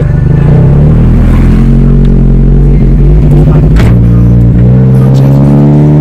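Car engine revving up as the car accelerates, heard loud from inside the cabin, climbing in pitch in two stretches.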